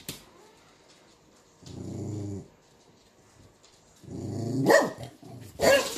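A dog growling low, briefly, about two seconds in, then growling again and breaking into two loud barks near the end.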